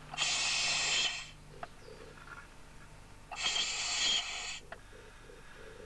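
Two breaths drawn through a firefighter's breathing-apparatus face mask, each a hissing rush of air about a second long, about three seconds apart.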